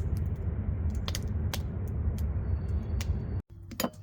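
Campfire crackling with irregular sharp pops over a steady low rumble, which cuts off abruptly near the end, leaving only a few faint clicks.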